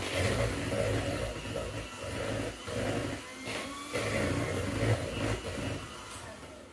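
Electric hand mixer running, its beaters whirring through cake batter as eggs are beaten into creamed butter and brown sugar; it is switched off just before the end.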